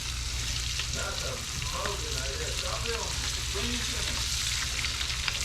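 Cichlid fillets frying in melted butter in a pan: a steady sizzle with fine crackling pops.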